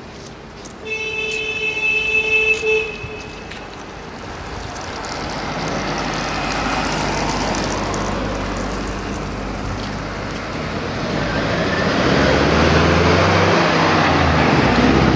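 A vehicle horn sounds once, held for about two and a half seconds, near the start. Then road traffic passes, growing louder, with a heavy engine running close by in the last few seconds.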